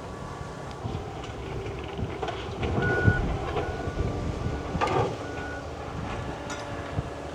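Heavy equipment's backup alarm beeping intermittently over a low engine rumble, with a few sharp knocks and wind on the microphone.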